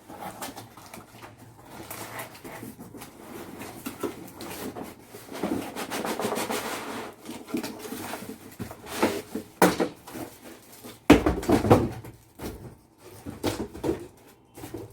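A monitor's cardboard box being opened and unpacked: rustling and scraping of the packaging, with several sharp knocks and thumps in the second half, the loudest a little past the middle.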